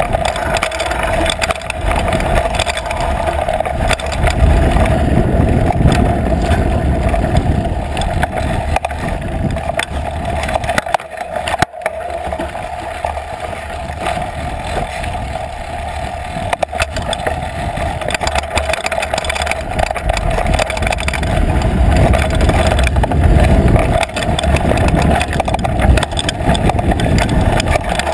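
Trek Fuel EX8 mountain bike riding fast down rough dirt singletrack, heard through a GoPro housing on the seat post: steady wind rumble and tyre noise over the dirt with constant rattling and clattering as the bike bounces over rocks and bumps. It drops briefly quieter about eleven seconds in.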